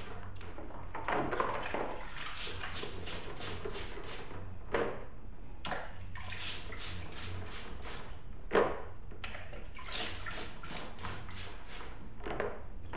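A small stiff brush scrubbing a wet, oil-soaked chainsaw chain, in runs of quick strokes about four a second, with a splash of the cleaning solution in the bucket now and then as the chain goes back in.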